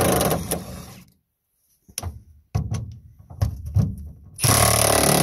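Milwaukee 1/2-inch impact wrench with an extension and 18 mm socket hammering on a truck bed bolt in two bursts. The first fades out about a second in and the second starts near the end, with a string of short metal knocks and clanks in between.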